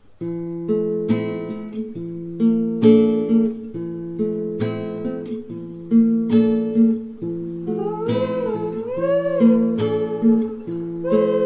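Background music starts suddenly: a plucked acoustic guitar playing chords, with a voice coming in over it about seven seconds in.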